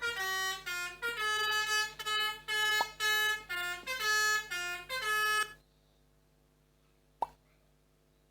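Melodica (pianika) playing the 'telolet basuri' bus-horn tune as a run of short, separate reedy notes, which stops about five and a half seconds in. A single sharp click follows about seven seconds in.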